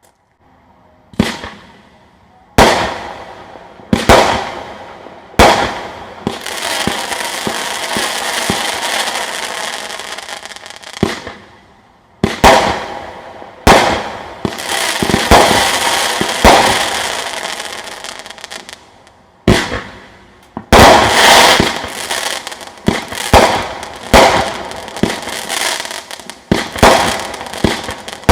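Chain Link brand consumer firework cakes firing in a linked sequence: single shots about every second and a half at first, then several seconds of dense continuous burst noise, more shots, a brief lull, and faster volleys near the end.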